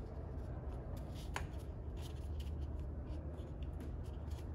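Faint handling sounds of a tablet being pressed into a plastic wall-mounted enclosure: light rubbing and small ticks, with one sharper click about a second and a half in. A steady low hum runs underneath.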